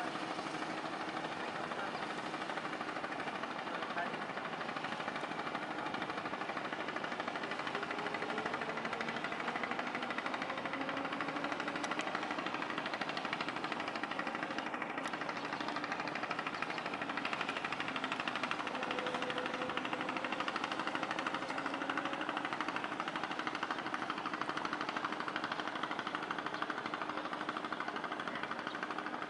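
Boat engine running steadily with a fast, even clatter, a few faint tones drifting up and down above it.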